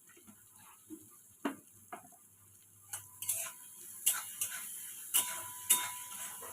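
Sharp clicks and taps of kitchen utensils against cookware, a few at first and coming more often from about three seconds in, over a faint hiss of frying that slowly grows.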